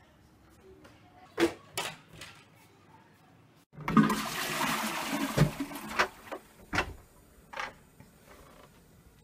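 Toilet flushed by its wall-mounted push-button plate: a sudden rush of water starts about four seconds in, is strongest for about two seconds, then dies down with a few sharp knocks. Two sharp clicks come before the flush.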